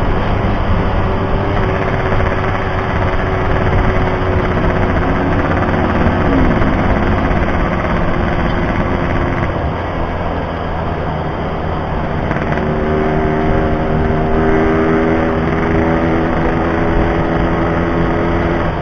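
Yamaha RX-King 135cc single-cylinder two-stroke engine running under a riding motorcycle. Its note shifts in pitch a few times as the throttle changes, rising about two-thirds of the way through.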